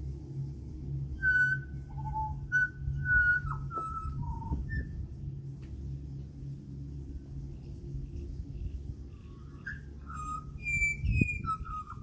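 Pied butcherbird singing: clear whistled notes in two phrases, the first starting about a second in and the second about ten seconds in. A steady low hum runs underneath.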